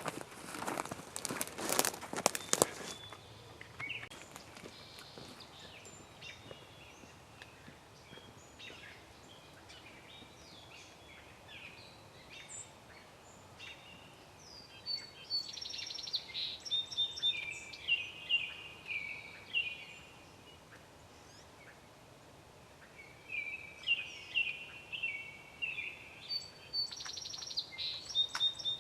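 A few seconds of rustling and clicking at the start, then songbirds singing, with repeated short phrases that grow louder and busier from about halfway through.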